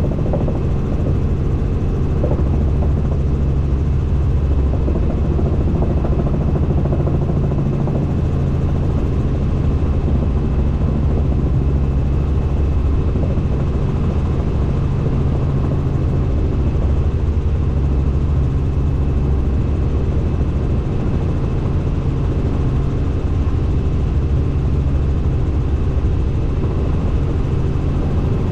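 Helicopter in flight: a loud, steady low drone of rotor and engine with a faint high whine held on one note.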